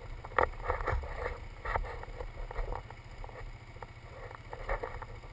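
Polaris ATV engine idling, a low steady rumble, with short irregular bursts of noise over it.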